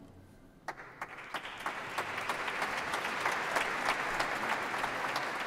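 Audience applause: a few first claps under a second in, swelling quickly into steady applause from many hands.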